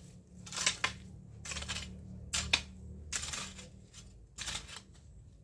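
Long-handled garden tool scraping and chopping through dry soil and dead weeds, five strokes about a second apart.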